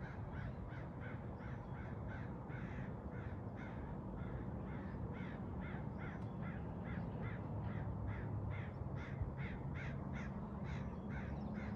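A bird giving a long, even series of short calls, about three a second, over a low steady rumble.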